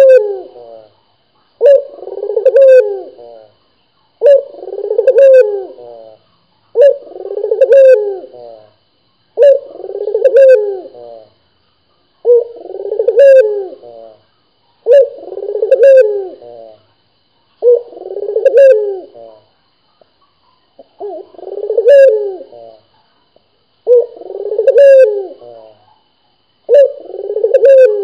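Caged Barbary dove (puter, ringneck dove) cooing over and over: a low coo about every two and a half seconds, each lasting about a second and a half, about ten in all.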